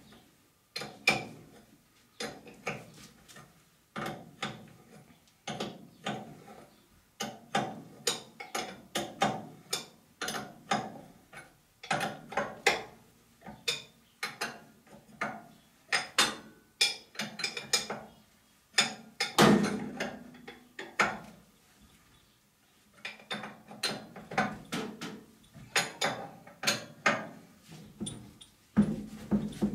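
Ratchet wrench clicking in short runs of strokes with brief pauses between, tightening a part of a coilover shock back up.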